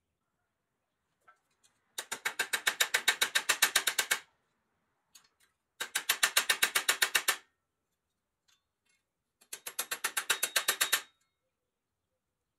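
Small hammer tapping rapidly on a pressed-steel toy truck part clamped in a bench vise, about nine light strikes a second. The taps come in three runs, each a second and a half to two seconds long.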